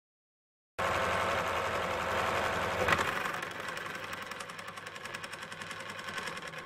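Small metal lathe running: a dense mechanical clatter and whine from motor and gears that comes in abruptly just under a second in, with one sharp knock about three seconds in, after which it runs somewhat quieter.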